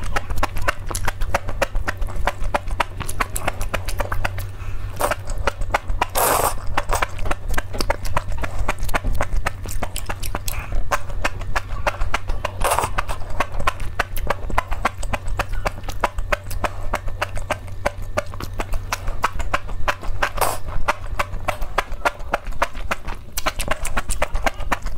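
Close-miked wet chewing and slurping of enoki mushrooms and cabbage in chilli oil, a dense run of rapid mouth clicks and smacks. A few longer, louder slurps come through, one about a third of the way in and one about halfway.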